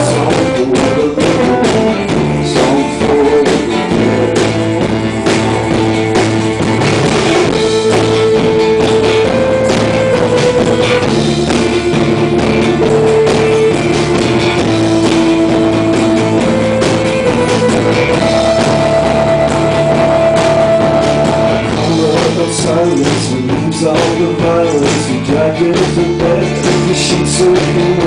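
Live band music: a strummed steel-string acoustic guitar with drums, under a melody of long held notes that step up and down.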